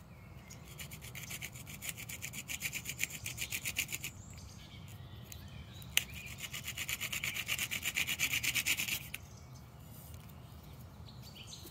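Stone-pointed hand drill, a stone bit set in asphaltum on a wooden shaft, spun back and forth between the palms so its point grinds into a piece of green stone: a dry rhythmic scraping at about four strokes a second. It comes in two bouts with a short pause between them, with a sharp click about six seconds in.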